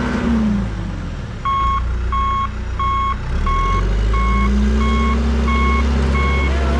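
Backhoe's diesel engine running, its reversing alarm starting about a second and a half in and beeping about three times every two seconds as the machine backs up. The engine picks up again about four seconds in.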